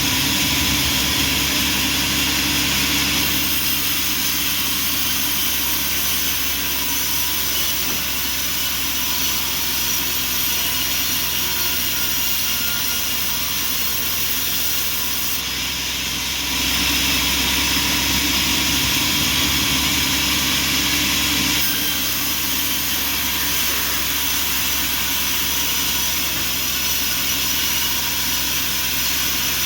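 Bandsaw sawmill machinery running: a steady mechanical drone with a high hiss, its tone shifting a few times.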